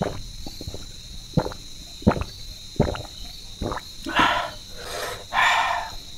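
A man gulping water from a glass in about four swallows, then blowing out two long, hissing breaths through his open mouth about four and five seconds in, against the burn of a spicy chilli meal.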